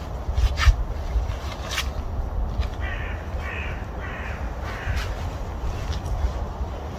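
A crow cawing, a run of about four harsh caws a few seconds in, over a steady low rumble. Two sharp clicks come in the first couple of seconds.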